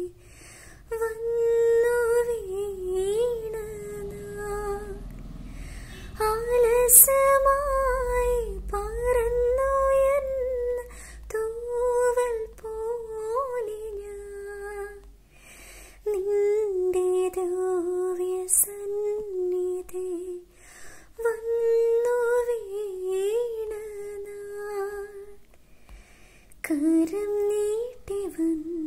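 Solo female voice singing a Malayalam Christian devotional melody unaccompanied, in long held phrases with ornamented turns and short breaths between them. Picked up close on an earphone microphone.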